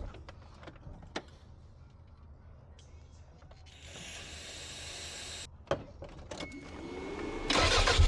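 Aerosol can sprayed into an engine's air intake in one hiss of about two seconds, with a few light clicks of hands on hoses and fittings before and after it. Near the end a much louder rumbling clatter starts.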